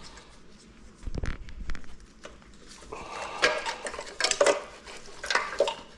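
Clattering and clinking of a motorcycle wiring harness's connectors and terminals knocking against the frame as the snagged harness is tugged free. A few dull knocks come about a second in, then several sharp rattling bursts in the second half.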